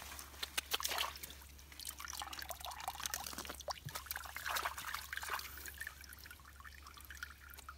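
Water trickling and dripping through a woven bamboo sieve basket of mud in shallow water, with many small splashes, busiest in the first few seconds.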